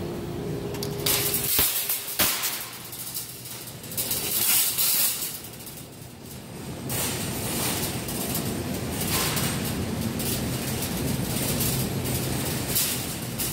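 Supermarket background noise with a steady low hum, overlaid by surges of rustling noise from a phone being carried while walking.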